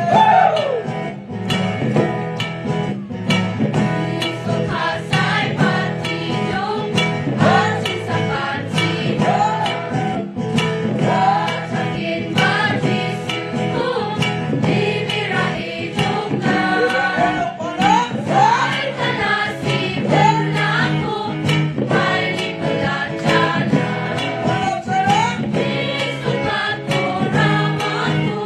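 Mixed choir of men and women singing together, over an instrumental accompaniment that keeps a steady beat.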